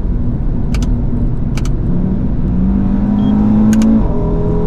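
Audi RS3's turbocharged 2.5-litre five-cylinder engine, heard from inside the cabin, pulling under acceleration: its pitch climbs for about two seconds, drops at an upshift about four seconds in, and starts climbing again. A few short sharp clicks sound over it.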